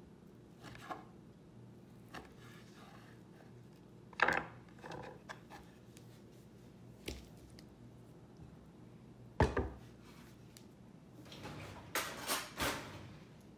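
Scattered knocks and taps of a kitchen knife cutting boiled tempeh on a wooden cutting board, and of the slices being handled and put into a glass bowl of marinade. The two loudest knocks come about four and nine seconds in, and a cluster of taps comes near the end.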